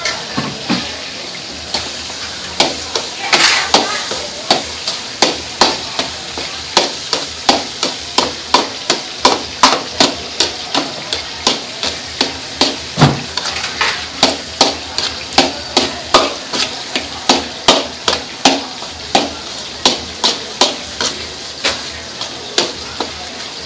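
Fried rice sizzling in a steel wok while a metal ladle strikes and scrapes the pan in a steady rhythm of about two clanks a second, starting in earnest a couple of seconds in.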